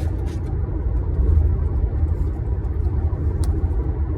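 Steady low background rumble, with a few faint clicks about three and a half seconds in.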